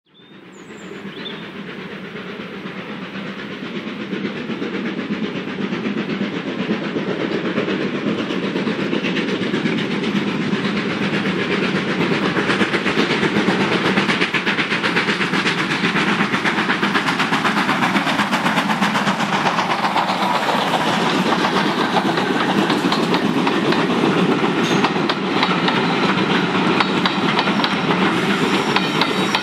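Two GWR Manor class 4-6-0 steam locomotives double-heading a passenger train: their steady exhaust beats grow louder over the first dozen seconds as they approach, then the coaches roll past with wheels clattering on the rails.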